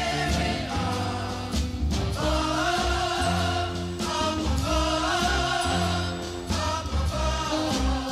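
Music with a singing voice that wavers in pitch, carried over steady low bass notes.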